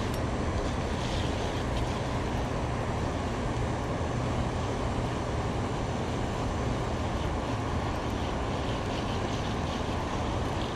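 Steady low rushing rumble of river water below a dam, with the faint whir of a spinning reel being cranked to bring in a fish.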